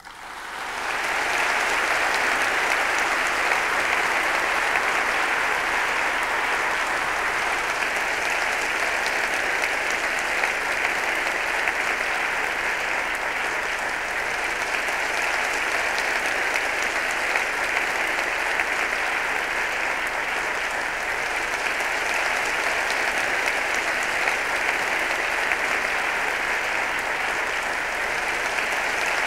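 A large audience applauding, the clapping swelling up over the first second and then holding steady and dense.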